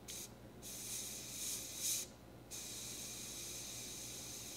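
Gravity-feed airbrush spraying paint, a steady hiss that stops briefly about half a second in and again about two seconds in, then runs on without a break.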